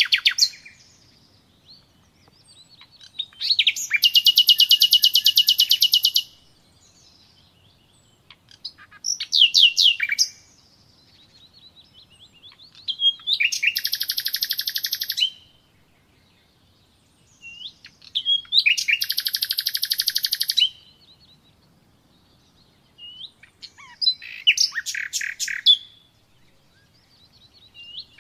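Songbird singing: five high, rapid trilled song phrases of two to three seconds each, with short quiet pauses between them.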